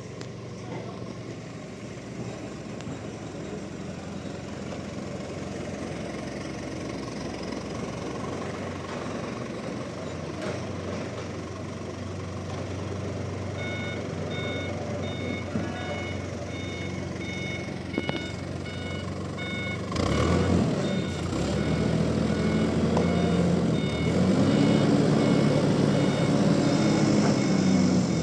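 A diesel vehicle engine running, with a reversing alarm starting its regular beeping about halfway through. In the last third the engine grows louder, its pitch rising and falling as it revs.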